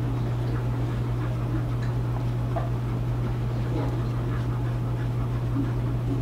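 Wooden spoon stirring thickening custard in a metal saucepan as it nears the boil, with faint scrapes, taps and blips over a steady low hum.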